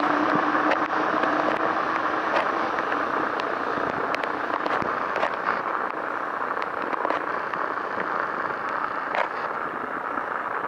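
Osaka Monorail train running along its elevated guideway on rubber tyres, a steady rolling rush that slowly fades as it draws away, with a low hum dying out in the first second or so. Scattered sharp ticks of rain run through it.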